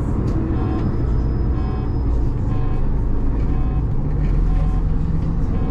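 City bus engine running with a steady low drone, the bus under way.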